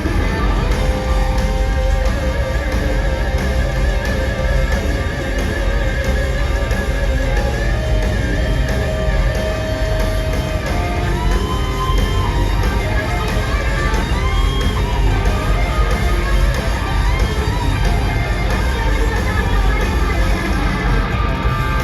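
Live rock band playing loudly, with a lead electric guitar line of long held notes that bend and slide in pitch over bass and drums.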